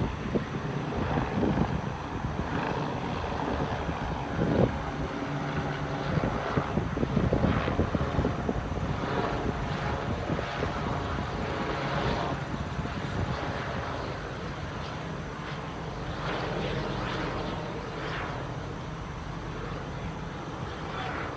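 Air-ambulance helicopter's rotor and turbine running with a steady drone, with wind buffeting the microphone in gusts. The sound eases slowly over the second half.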